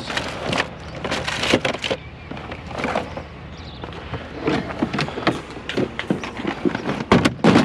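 Objects being rummaged through and handled in a box of discarded household items: irregular knocks, clatter and rustling.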